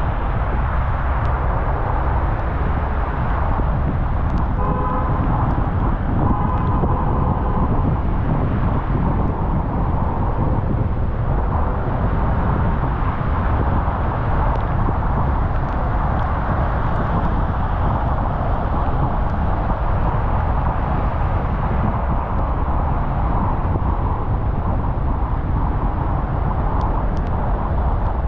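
Steady road noise of a car driving through rain on wet roads, with a car horn sounding briefly about five seconds in.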